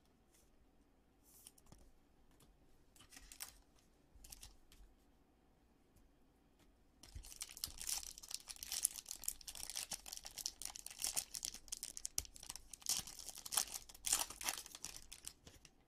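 A few faint taps and rustles of cards being handled, then, from about seven seconds in, a foil Topps Allen & Ginter Chrome pack wrapper being torn open and crinkled, a dense crackling that goes on for about eight seconds.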